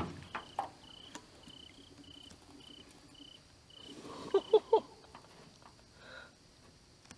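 An insect chirping steadily in the night: a short, high chirp repeating about twice a second. A brief cluster of louder short sounds comes a little past four seconds in.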